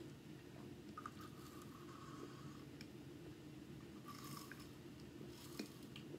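Quiet, close-miked sipping of a carbonated drink through a plastic straw, with small mouth clicks and swallowing sounds.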